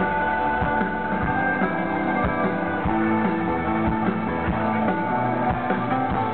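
Rock band playing live, an electric guitar carrying held chords over drum hits with no singing, heard from the crowd.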